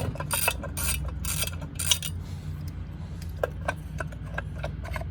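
Hand tools working on a dirt bike, most likely a ratchet wrench: about five rasping strokes half a second apart in the first two seconds, then lighter metal clicks, over a low steady hum.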